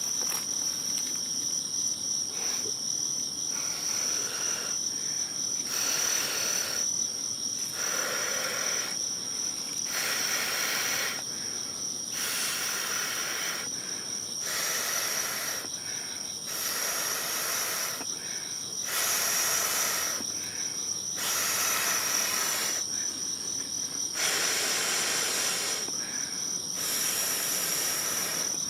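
A person blowing on a smouldering ember to coax it into flame: a series of breaths, each a soft hiss about a second long, a second or two apart. Crickets chirr steadily in the background.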